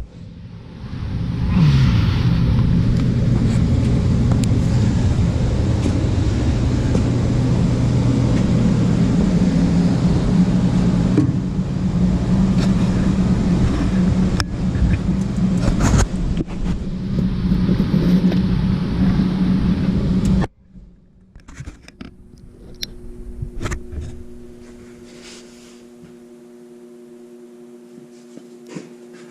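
A loud, steady mechanical drone of a motor running, which cuts off suddenly about twenty seconds in. It gives way to a quiet electrical hum with a few light knocks.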